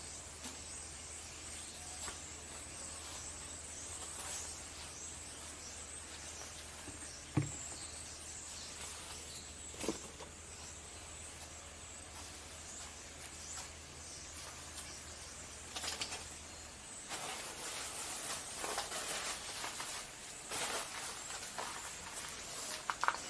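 Faint rustling and handling noises with a few short clicks. A low steady hum stops about seventeen seconds in, and the rustling grows busier and louder after that.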